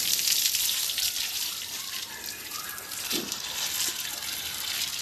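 Running water splashing and pouring onto a Murrah buffalo's hide as it is washed, a steady hiss of water.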